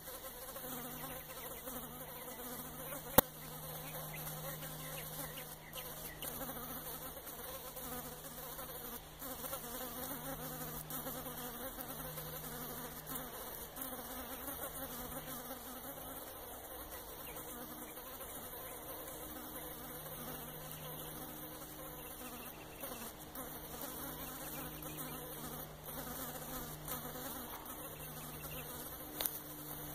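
A fly buzzing in flight, a low steady drone that fades for a while and then comes back. A single sharp click about three seconds in.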